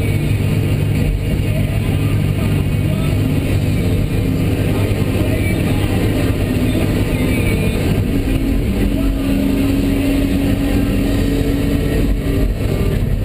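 Komatsu PC300 hydraulic excavator's diesel engine running steadily under working load, heard from inside the operator's cab. About eight seconds in, a higher steady whine joins for a few seconds, then fades.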